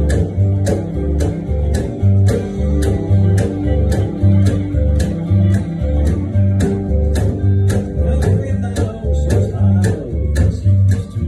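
Acoustic upright bass plucked in a bouncing country rhythm, its deep notes changing about twice a second, over a band backing with guitar and a steady clicking beat about three times a second.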